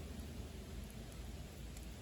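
Wood fire burning in a secondary-combustion stove: a steady low rumble with a few faint crackles.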